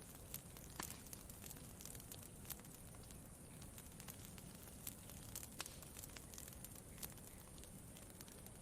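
Campfire crackling: irregular sharp pops and snaps, a few louder than the rest, over a faint steady hiss.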